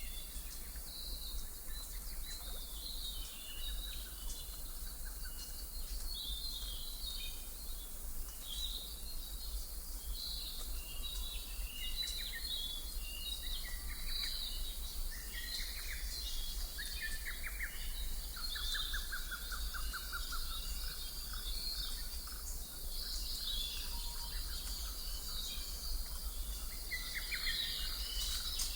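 Background ambience of many small birds chirping and twittering, with a quick trill of rapidly repeated notes a little past the middle and a steady low hum underneath.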